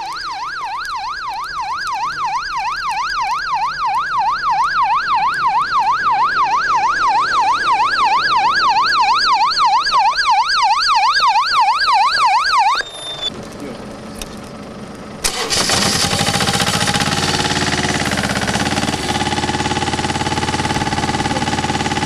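Emergency siren in a fast yelp, rising and falling about three times a second, cutting off about 13 seconds in. A couple of seconds later a steady engine-driven pump starts running loud, with the hiss of a hose spraying water onto burning brush.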